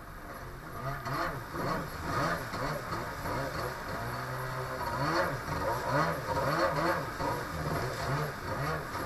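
Two-stroke jet ski engine heard from on board, its pitch swinging up and down about every half second as the throttle is worked, holding steady briefly about four seconds in. Water splashes and rushes under the hull.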